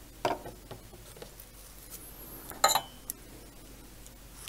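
Two sharp metallic clinks about two and a half seconds apart, the second louder with a brief ring: small metal hand tools being set down or knocked together on a workbench.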